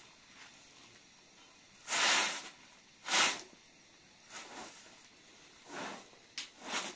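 Bundled-straw hand broom sweeping a rug: about six short brushing swishes, the two loudest about two and three seconds in, then lighter strokes toward the end.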